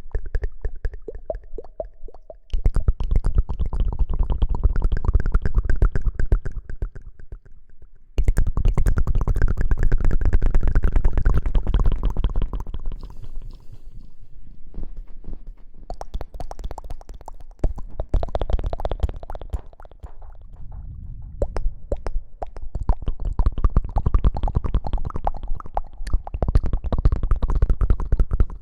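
Close-miked ASMR rustling and crackling, a dense run of quick clicks with a deep rumble, typical of hands and lather working against the microphone. It comes in loud spells several seconds long, with quieter gaps between.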